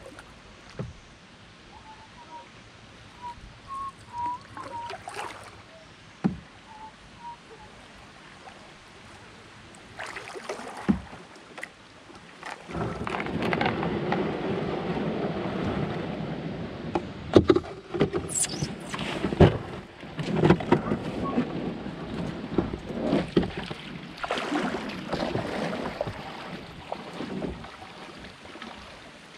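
Canoe hull scraping and grinding over river gravel as it runs aground in a shallow riffle, starting about halfway in. Sharp knocks and splashes follow as it grounds. Before that there is only quiet water with a few faint chirps.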